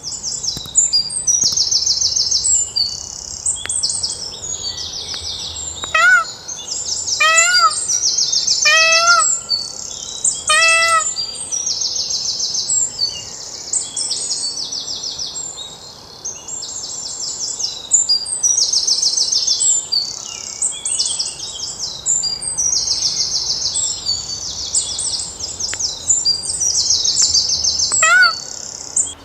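Dense chorus of small birds chirping in rapid high trills, with a peacock (Indian peafowl) calling loudly four times in quick succession about six seconds in, and once more near the end.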